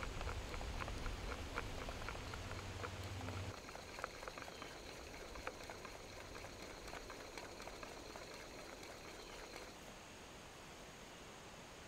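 Dry plant fibres crackling and rustling in the hands as they are stripped and twisted into cordage: a faint run of many small, sharp clicks and snaps.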